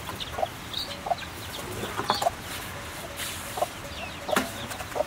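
Chickens clucking now and then, with a few sharp clicks, the loudest about two seconds in and again near the end.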